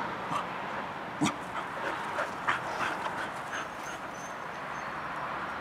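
Finnish Lapphund at play giving a string of short yips, the loudest about a second in, with a few quieter ones after it, over a steady background hiss.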